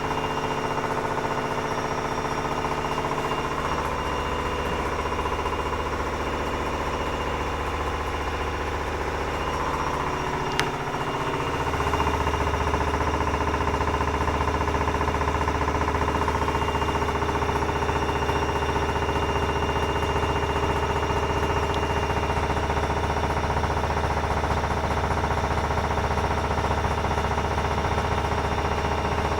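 Privileg 9515 Sensation washing machine on a 900 rpm spin, the drum and motor running with a steady hum and a knocking from inside the machine, which the owner hears only when it is loaded with laundry and cannot yet trace. One sharp click about ten seconds in; about twelve seconds in the running steps up louder.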